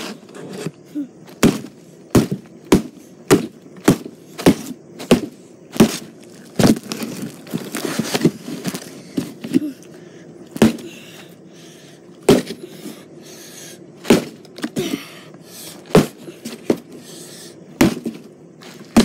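Hammer repeatedly striking a box, about twenty sharp blows. They come roughly every half second in the first half and are more spread out in the second.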